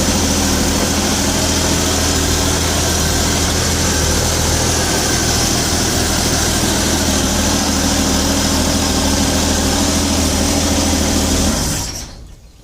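1967 Chevy G10 van engine idling steadily, then shut off near the end.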